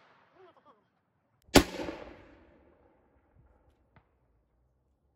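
A Model 1842 .69-calibre smoothbore percussion musket fires a single buck-and-ball shot about a second and a half in. Its report echoes and fades over about a second. A faint click follows near the end.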